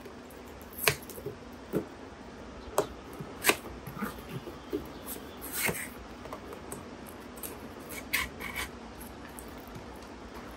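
A cardboard toy box with a clear plastic window being opened and emptied by hand: scattered taps and clicks from the flap and packaging, with a brief scrape about halfway through.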